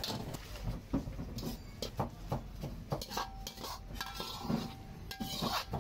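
Steel ladle stirring food in a wok, knocking and scraping against the metal pan in irregular clanks several times a second.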